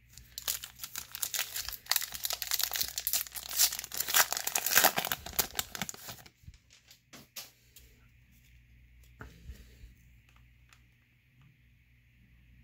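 Foil wrapper of a baseball card pack being torn open and crinkled, a dense crackling from about half a second in to about six seconds in, followed by a few faint clicks as the cards are handled.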